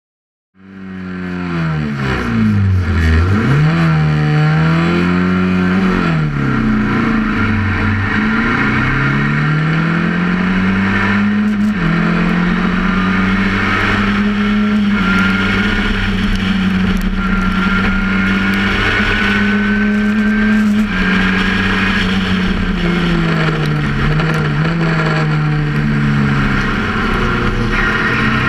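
Formula Ford 1600 race car's Ford Kent four-cylinder engine heard from the cockpit, fading in about half a second in. The engine revs up and down at first, then pulls hard with the pitch climbing through the gears and dropping sharply at each upshift, over steady wind and road noise.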